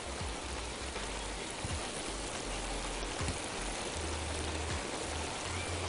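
Boiled corn cobs sizzling gently in melted butter, garlic and Cajun spices in a frying pan over low heat: a steady hiss.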